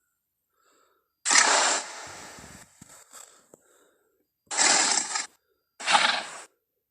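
Tyrannosaurus rex sound effects: a loud, short, harsh call about a second in that trails off, then two shorter calls about a second apart near the end.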